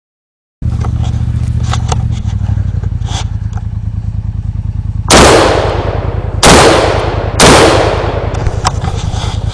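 Three loud gunshot blasts about a second apart, each fading out over about a second, over a steady low rumble.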